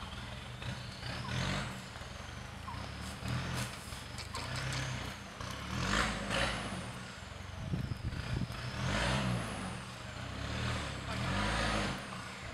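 4x4 pickup truck engine revving up and down in repeated surges as the truck crawls over rocks.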